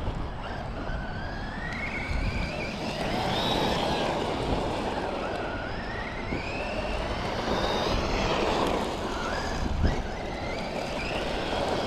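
Brushless motor and geartrain of a 1/10-scale Losi Lasernut U4 4WD RC rock racer whining, the pitch rising and falling with the throttle, over a steady rushing noise, with a single knock near the end.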